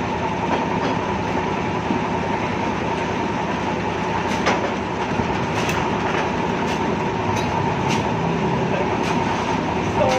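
Hand-crank-started diesel engine running steadily with a dense mechanical clatter, with a few sharp clicks over it.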